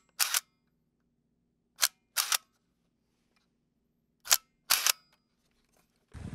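Camera shutter sound effect, heard three times about two seconds apart, each a quick two-part click.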